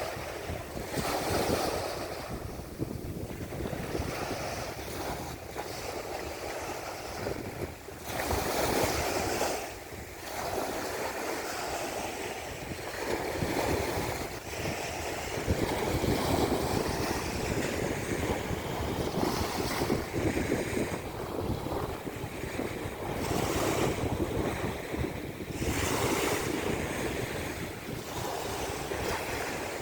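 Sea waves breaking and washing up the shore, the surf swelling and easing in repeated surges, with wind buffeting the microphone.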